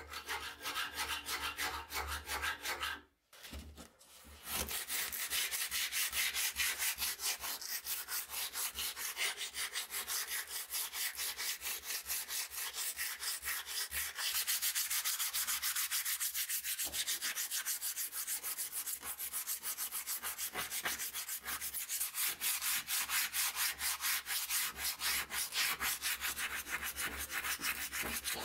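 Sandpaper rubbed back and forth by hand along a wooden axe handle in quick, steady strokes, with a short break about three seconds in.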